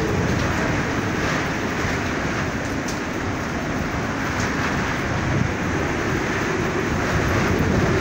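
Strong storm wind blowing with rain, a steady rushing noise that holds at an even level.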